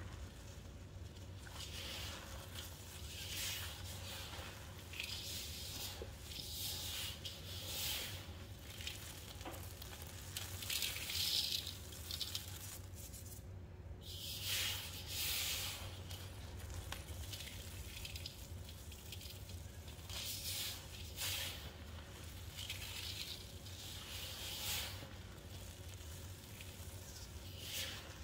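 A dry powder mix of baking soda, Zote soap flakes and baby powder being squeezed and pressed, giving repeated crunchy, hissing crunches every second or two. A low steady hum sits underneath.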